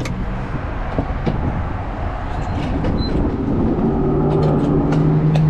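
Motor traffic rumbling steadily, with a few light clicks and knocks; about four seconds in, a steady low engine hum sets in.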